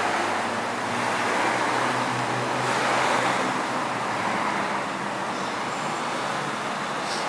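Road traffic: cars driving past with tyre and engine noise, loudest as one passes about three seconds in.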